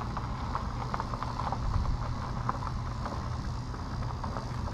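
A vehicle engine idling steadily, with faint light ticks scattered over it.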